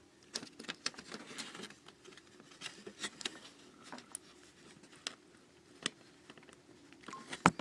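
Scattered light clicks and scratches of small plastic and wire parts being handled inside an opened laptop, as a DC power jack cable is worked loose and fitted. The sounds are irregular and faint, with a sharper click near the end.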